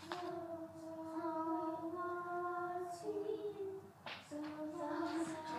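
Junior high choir singing a sight-reading exercise, holding long notes that change pitch about three seconds in, with a short break for breath near four seconds before the next phrase.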